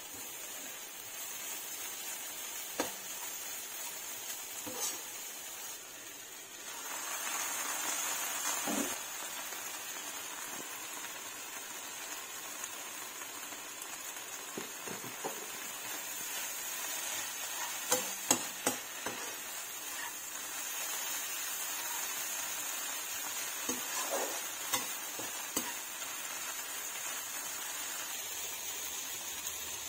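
Drumstick leaves and anchovies sizzling steadily in a nonstick wok as they are stir-fried, with a metal slotted spatula scraping and tapping against the pan now and then, a few louder taps about two-thirds of the way through.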